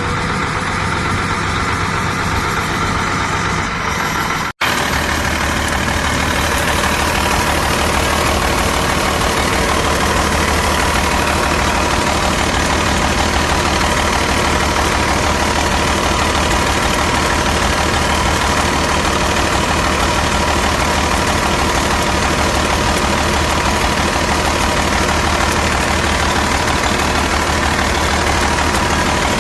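Detroit Diesel Series 60 inline-six diesel engine idling rough and stuttering, the sign of a low-mileage engine not firing properly on all cylinders. The sound drops out for an instant about four and a half seconds in, then the steady running carries on.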